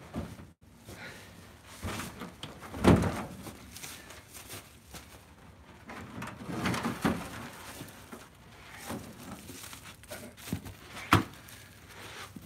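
Heavy ash firewood rounds being lifted from a pickup bed and set onto a stack: a series of dull wooden thuds and knocks, the loudest about three seconds in, with a sharp knock near the end.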